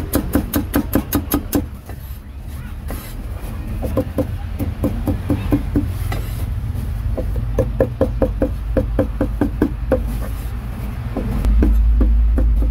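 Cleaver chopping rapidly on a chopping block, about five strokes a second, in runs with short pauses. A low rumble swells near the end.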